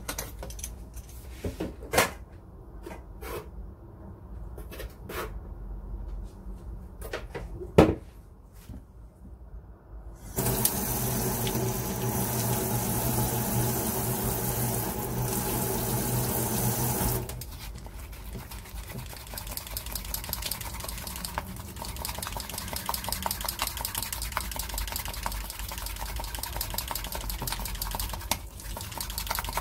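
Dental plaster being mixed by hand in a rubber bowl with a metal spatula: scattered taps and knocks at first, then fast, steady spatula strokes through the second half. About ten seconds in, a loud steady hiss with a low hum starts and lasts about seven seconds.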